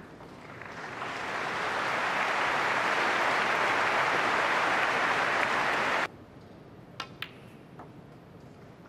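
Snooker audience applauding a century break: the applause swells over the first two seconds, holds, and cuts off abruptly about six seconds in. About a second later come two sharp clicks of snooker balls being struck, a quarter second apart, then a fainter click.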